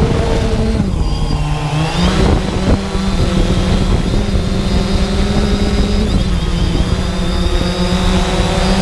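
Quadcopter drone's electric motors and propellers buzzing loudly, heard from the drone's onboard camera, with a rush of wind and prop wash. The steady hum drops in pitch about a second in and rises back about a second later as the throttle changes.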